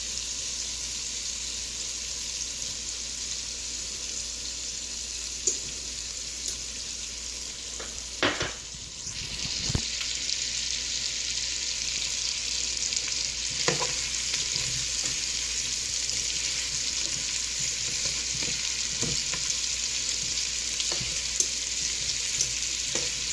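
Boiled red potatoes sizzling in a pan of melted butter and olive oil with garlic and rosemary, frying to brown. A few knocks, likely the utensil stirring them, and the sizzle grows a little louder after about nine seconds.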